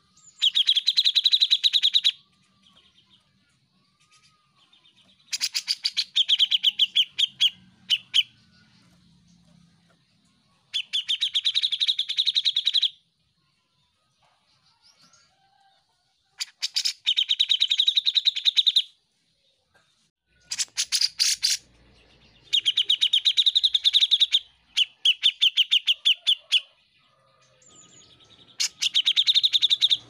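Grey-cheeked bulbul (cucak jenggot) singing in bursts of rapidly repeated notes, each burst about two seconds long, seven times with short pauses between.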